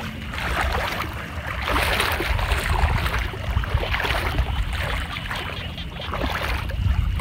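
People wading through floodwater, the water sloshing and splashing around their legs with each step, over a low rumble.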